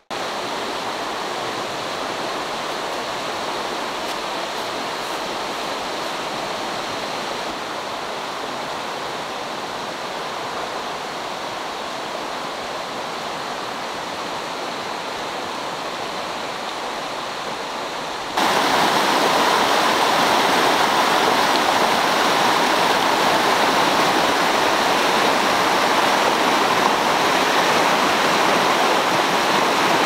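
Mountain stream running over rocks and riffles, a steady rush of water. About 18 seconds in it cuts suddenly to a louder stretch of white-water rapids.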